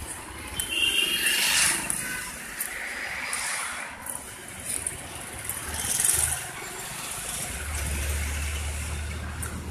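Street traffic: motor vehicles passing, swelling twice, with a low steady engine hum setting in near the end.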